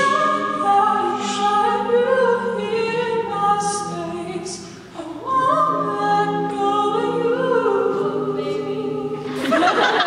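All-male a cappella group singing close-harmony chords under a lead vocal. The voices thin out and drop briefly about five seconds in, then the full chord comes back, with a few short crisp hissing hits along the way.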